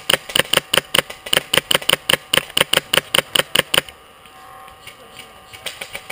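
Polar Star HPA-powered airsoft rifle firing a rapid string of shots, about six a second, for nearly four seconds, then stopping. Fainter shots start again near the end.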